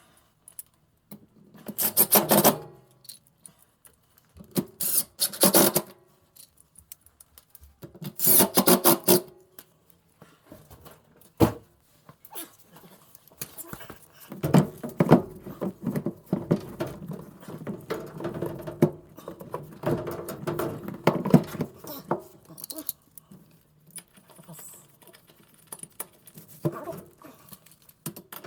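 Hand work on a front-load washer: tools and metal parts clicking and rattling. There are short bursts of rapid clicking about two, five and eight seconds in, then a longer stretch of dense clicking and clatter.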